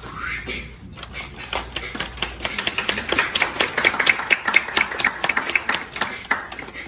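A small audience clapping: quick, uneven claps start about a second in and thin out shortly before the end.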